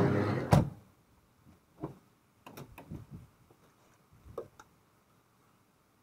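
A van door sliding and shutting with a sharp thud about half a second in, followed by scattered light knocks and clicks.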